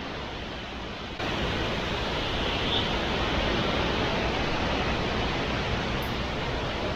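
Hurricane-force wind blowing, a steady rushing noise that jumps louder about a second in.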